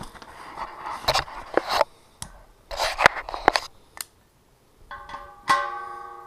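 Socket ratchet and wrench being worked on a compressor wheel's axle nut: irregular metal clicking, rattling and scraping. About five and a half seconds in, a metal clank sets the steel tank or frame ringing, and the tone slowly dies away.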